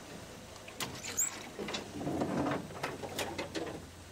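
Dry scrub and twigs crackling and snapping against a game-drive vehicle pushing through the bush: a handful of sharp cracks with rustling in between, and a brief high chirp about a second in.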